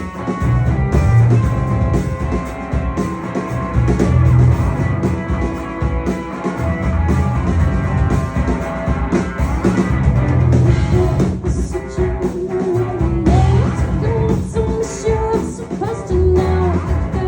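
Live rock band playing loudly: drums, heavy bass and electric guitar, with a voice coming in near the end.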